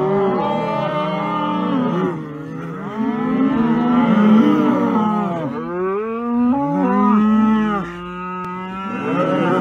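A herd of cattle mooing, several long calls overlapping one after another with hardly a break.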